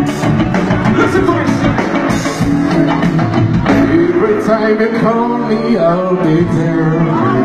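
Live band music with singing over drums and amplified instruments. The low drums and bass drop away about four seconds in, leaving the melody lines.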